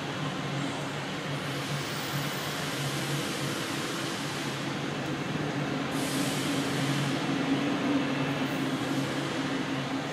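Boeing 777-200ER's GE90 turbofan engines running at taxi power, a steady rumble with a low hum that swells slightly a few seconds in, muffled through terminal window glass.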